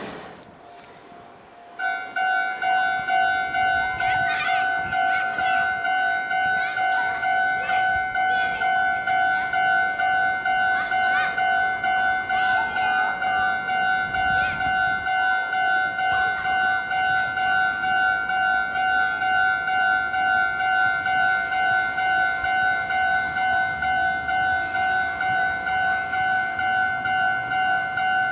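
Japanese railway level crossing's electronic warning bell starts suddenly about two seconds in and rings steadily, about two rings a second, signalling an approaching train.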